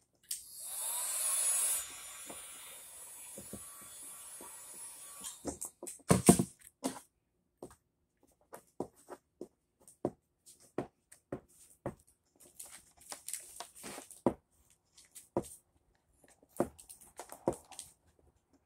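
Heat gun blowing steadily for about five seconds, warming vinyl wrap film, then cutting off. A sharp knock follows, then scattered crackles and taps as the vinyl film is pressed and smoothed by hand.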